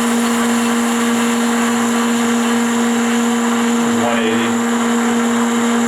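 Cincinnati Heald 273-A internal grinder running under power: a steady, unchanging hum.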